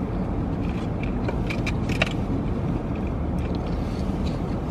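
Steady low hum of a car idling, heard from inside the cabin, with a few light clicks and rustles about one to two seconds in.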